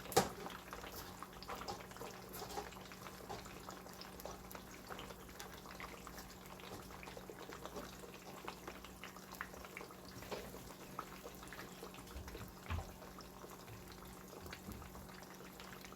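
Faint kitchen cooking sounds: a soft bubbling hiss with many scattered light clicks over a steady low hum, and one sharper click just after the start.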